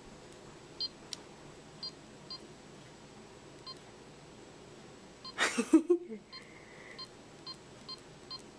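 Compact digital camera's button beeps: about ten short, high electronic beeps spaced irregularly as its controls are pressed. A brief louder noise comes about five seconds in, followed by a short steady tone.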